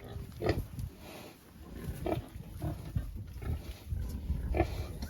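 Pigs grunting: about five short grunts spread over a few seconds.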